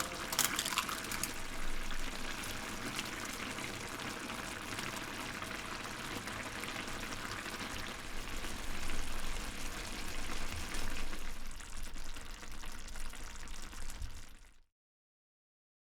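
Miso udon stew simmering in a Nanbu cast-iron frying pan, a steady bubbling hiss that cuts off suddenly a second before the end.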